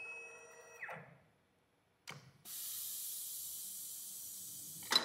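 AXYZ CNC router with automatic tool changer picking up a tool. A short whine from the gantry drive fades out about a second in as the spindle settles over the carousel. After a click at about two seconds, a steady compressed-air hiss from the spindle runs as it takes the tool holder into its taper, and it ends with a sharp clunk as the tool locks in.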